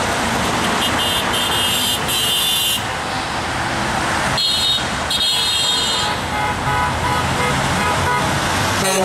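Steady road traffic with car horns honking several times: a long honk about a second in and more from around four and a half seconds. The honks are passing drivers signalling support for the rally signs.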